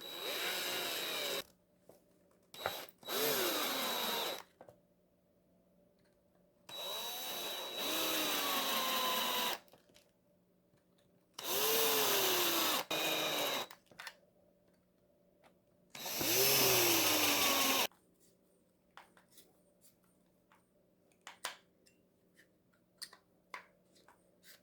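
Power driver running screws into an RC truck's gearbox and bulkhead housing, in about six short runs of one to three seconds each, its whine dropping in pitch as each screw tightens. A few light clicks of handling follow near the end.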